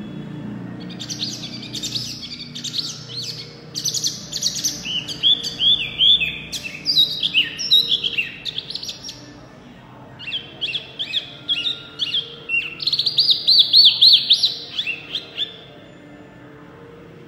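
Caged wambi, the small songbird sold as 'mini hwamei', singing loudly: rapid series of clear, downsliding whistled notes repeated phrase after phrase. There is a short break about halfway through, then it starts again and stops near the end.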